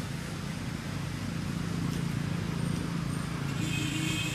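A motor vehicle's engine running with a steady low hum, and a brief higher-pitched tone near the end.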